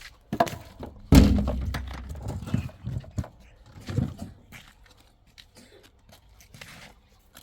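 A series of knocks and thuds, the loudest a heavy thud about a second in that leaves a low rumble for about a second, then fainter clicks and taps.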